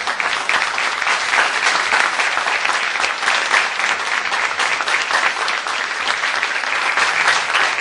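Audience and people standing at the front applauding: steady, sustained hand clapping from a group.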